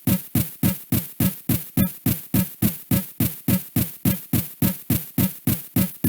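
Synthesized emergency-alert alarm sounding as a rapid, even train of short buzzy pulses, nearly four a second, each dropping quickly in pitch.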